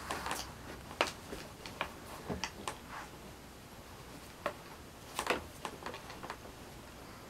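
Light, scattered clicks and knocks from a hand-held stick tool and its plastic fittings being handled, about a dozen sharp taps spread irregularly, with a small cluster of them about five seconds in.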